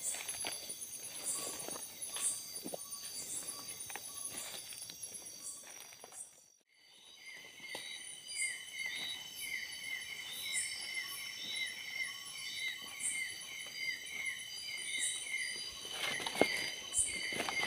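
Night forest insect chorus: steady high-pitched trilling and buzzing from insects. After a brief drop-out about six seconds in, a repeated chirping call comes in at about two chirps a second. Footsteps and rustling through undergrowth are heard in the first part and again near the end.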